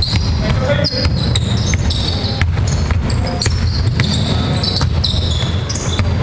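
Basketball dribbled on a hardwood court, with repeated thudding bounces and short high squeaks of players' shoes on the floor.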